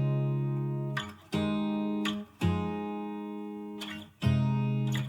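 Background music: guitar chords struck one at a time and left to ring out, a new chord about every one to two seconds, in an instrumental break of a pop song.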